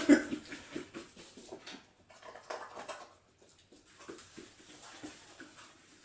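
A Schapendoes dog moving about on foam floor mats, making faint, irregular soft taps and rustles, with a brief louder thump at the very start.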